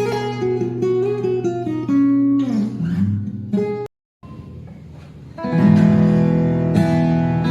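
Acoustic guitar with new D'Addario EXP26 coated phosphor bronze strings being played: single picked notes and a sliding run, a brief cut-out about four seconds in, then fuller, louder strummed chords from about five and a half seconds.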